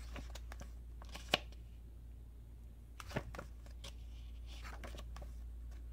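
Pages of a hardcover picture book being turned by hand: soft paper rustling with a sharp flick about a second in and another about three seconds in, over a steady low hum.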